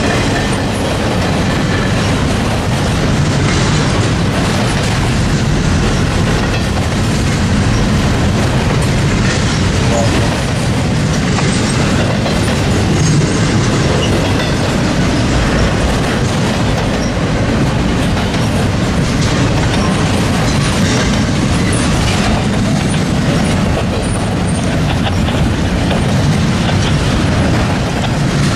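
Freight train cars rolling steadily past, a continuous loud rumble with the clickety-clack of wheels over the rail joints.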